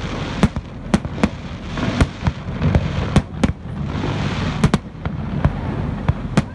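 Aerial firework shells bursting in quick succession: about ten sharp bangs at uneven spacing, some in close pairs.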